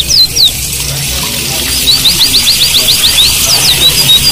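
White-eyes (Zosterops) singing in quick runs of high, slurred notes, with a rapid trill of about eight notes a second about halfway through. A steady hiss of running water sounds underneath.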